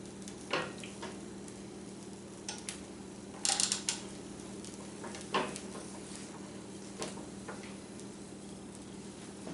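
Light knocks and clatters from a panini press being handled as its hinged lid is lowered onto a sandwich, a handful of short clicks with the loudest cluster about three and a half seconds in, over a steady low hum.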